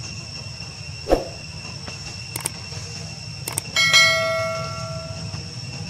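A single metallic clang about four seconds in, ringing and fading away over about a second and a half, after a duller thump and two faint clicks, over a steady low rumble and a constant high whine.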